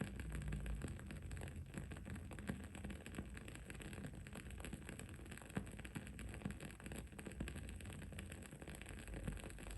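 Wood-wick candle crackling: a dense, irregular run of small pops and ticks over a low, steady background hum.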